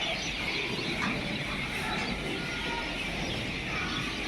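A steady background of chirping, bird-like animal calls, with no single loud event.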